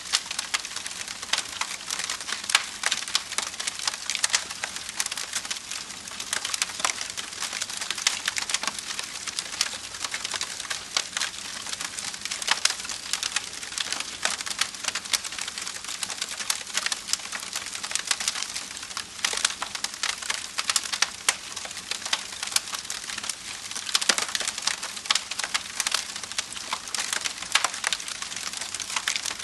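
Wood fire crackling: dense, irregular snaps and pops over a soft hiss.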